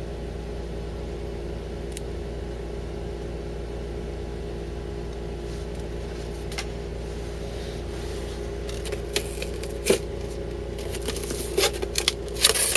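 Cardboard and paper packing being handled while a shipping box is unpacked: scattered clicks and rustles starting about nine seconds in and growing busier near the end, over a steady background hum.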